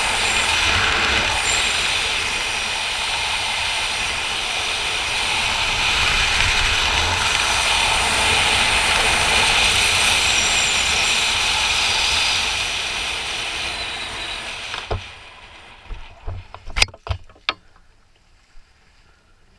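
Wind rushing over the camera microphone during a parachute descent, fading out about fifteen seconds in as the canopy lands. A few scattered knocks and rustles follow.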